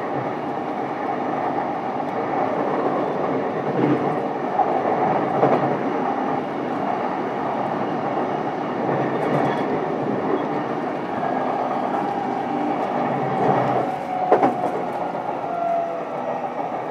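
Running sound inside a JR East E233-7000 series commuter train's motor car: steady rolling noise with wheels clicking over rail joints. In the last few seconds a motor whine slowly falls in pitch as the train slows.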